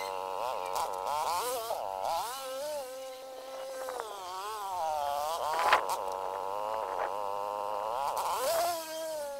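Snowblower's small engine running, its pitch rising and falling constantly as it works and changes load, with a sharp clank a little past halfway.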